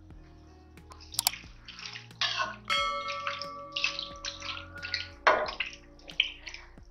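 A metal spoon stirs pieces of goat intestine in water in an aluminium pressure cooker: a quick run of wet sloshing strokes, with light clicks of the spoon against the pot. It is the mixing before the cooker is closed for pressure cooking.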